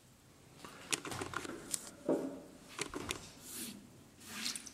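Handling noise: ceramic tile pieces moved by hand on the tile saw's ribbed bed, a few light knocks and scrapes at irregular moments.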